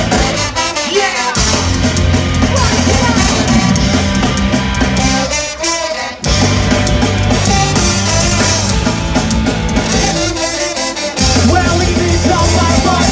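Live ska-punk band playing loudly, with drums, bass and guitars. The bass and drum low end cuts out briefly three times, about every five seconds.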